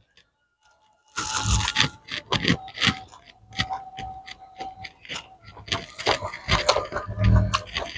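Eating by hand from plates: fingers scraping rice and food across the plates and crisp fried food crunching while being bitten and chewed, heard as a string of short clicks and crunches that starts about a second in.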